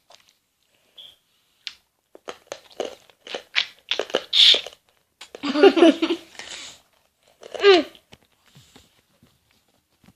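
A child crunching a Warheads sour hard candy in her mouth, a run of short crunches and clicks, followed by giggling twice.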